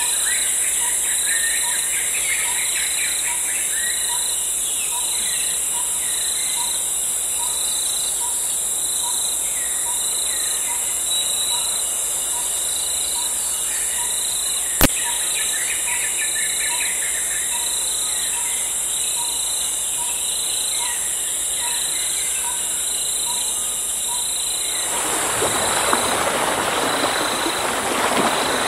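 Tropical forest ambience: a steady high-pitched insect drone with bird chirps and calls over it, and a regular soft pip a little more than once a second. There is a single sharp click about halfway through. About 25 s in, the insect sound gives way to a steady rushing noise of flowing water.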